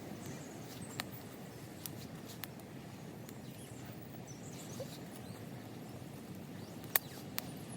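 Small wood fire crackling: a few sharp, irregular pops over a steady low background noise.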